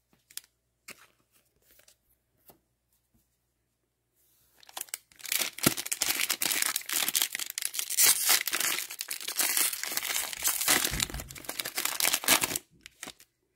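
A foil trading-card pack wrapper being torn open and crinkled, a dense crackling that starts about four seconds in and stops shortly before the end, after a few faint clicks.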